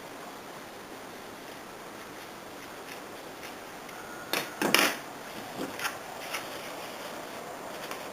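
Handling noises: a short cluster of knocks and rustles about four and a half seconds in, then a few lighter clicks, over a steady faint hiss.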